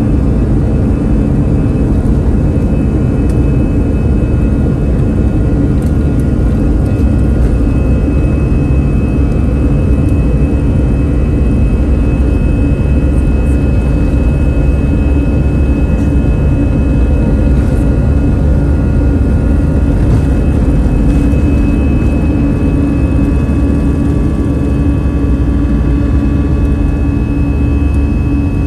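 Airbus A320's CFM56 jet engines at high takeoff thrust, heard inside the cabin: a loud, steady rush with a held high whine and a low hum.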